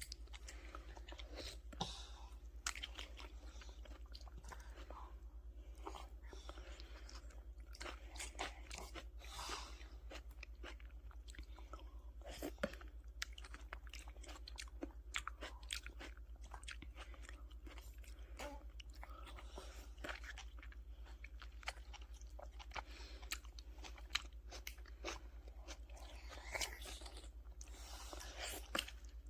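A toddler chewing and biting into tomato, with wet mouth clicks and small crunches scattered irregularly throughout, over a steady low hum.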